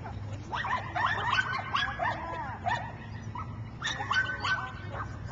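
A dog barking in rapid, high-pitched yips, in two runs: one soon after the start, the other about four seconds in.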